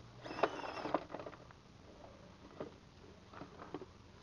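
1:18 scale Fire Horse Wrangler RC crawler tumbling on rocks, tipped over because it is top heavy: a burst of scraping and clattering with a short whine about half a second in, then a few light knocks as it scrabbles back onto its wheels.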